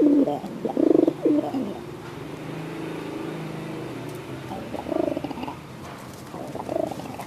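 Domestic pigeons cooing: a loud run of coos in the first second and a half, softer calls after, and more coos about five seconds in and again near the end.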